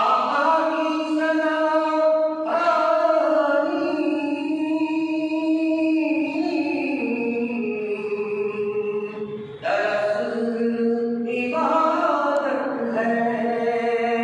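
A single man's voice chanting in long, drawn-out sung notes that glide slowly in pitch, in phrases of several seconds, with short breaks for breath about two and a half and ten seconds in.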